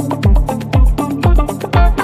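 Background electronic dance music with a steady kick-drum beat, about two beats a second, over a sustained bass line and short melodic notes.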